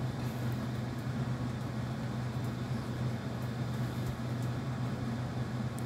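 Steady low hum with an even faint hiss behind it, unchanging throughout, like a running fan or appliance.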